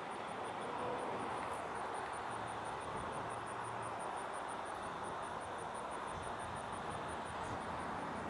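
Steady outdoor background hiss with no distinct event, and a faint, high, rapid ticking of about six or seven beats a second.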